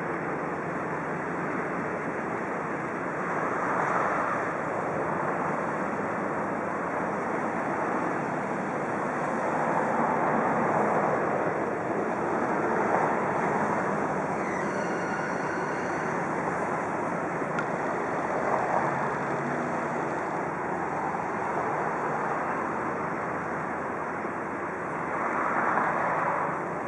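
Steady rushing of river water churned by a pusher tug driving a train of barges, swelling and easing every few seconds.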